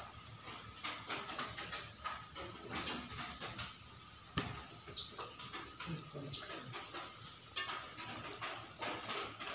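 Kitchen pot and dishes being handled: scattered light clinks and knocks, with one sharper knock about four and a half seconds in.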